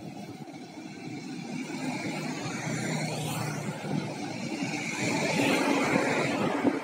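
Road traffic passing close by, growing steadily louder over the last few seconds as vehicles, including a bus, approach along the road.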